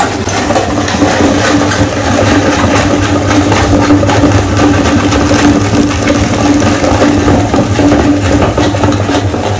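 Electric meat grinder running with a steady motor hum while its auger crushes hard candy lollipops, with a dense crackling and grinding as the candy breaks up and is forced through the grinder plate.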